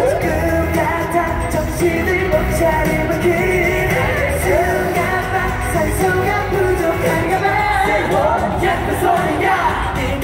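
Live K-pop performance: a boy group singing over a loud pop backing track with a steady beat, heard from the audience in a concert hall.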